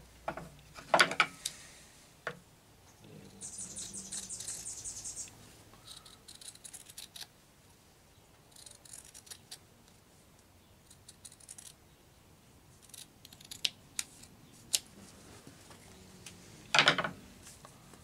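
Scissors and fabric being handled on a wooden worktable: a clatter of scissors picked up about a second in, a rasping snip-and-cut through cloth for a couple of seconds, then small clicks and cloth rustles, and another clatter as the scissors are set down near the end.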